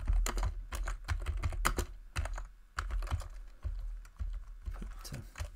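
Typing on a computer keyboard: a quick, irregular run of keystrokes with a brief pause about two and a half seconds in.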